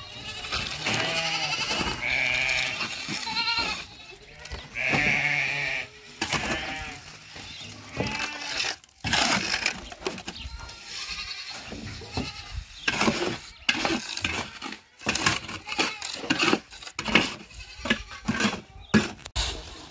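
Goats bleating, several quavering calls in the first half, followed by a run of short, sharp knocks and clatter.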